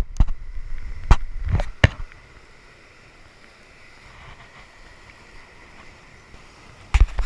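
Knocks and low thumps from hands handling a caught fish and line right at the camera microphone, several in the first two seconds and a cluster near the end. In between, a faint steady hiss of surf and wind.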